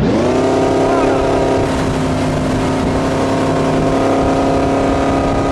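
Tow boat's inboard engine running steadily at towing speed, holding one pitch.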